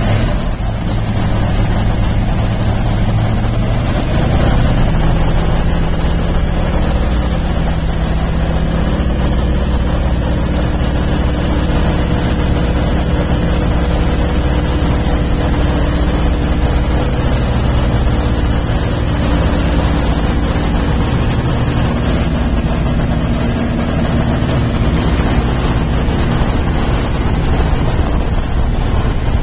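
PZL-104 Wilga's radial engine and propeller running at high power, heard from inside the cockpit during the takeoff run and climb-out. The engine note rises and gets a little louder about four seconds in, then holds steady.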